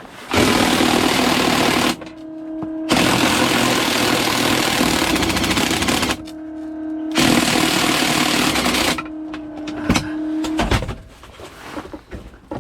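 A power tool run in three long bursts, each a harsh, fast rattle over a steady hum, stopping and starting between bursts, then a few knocks near the end. It is working on a stuck bolt that won't come out.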